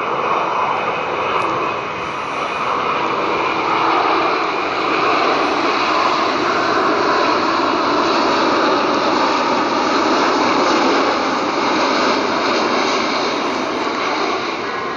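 Boeing 787-8's Rolls-Royce Trent 1000 jet engines at approach power as the airliner passes low overhead with its gear down: a steady rush of jet noise with a few held tones, growing louder toward the middle and easing near the end.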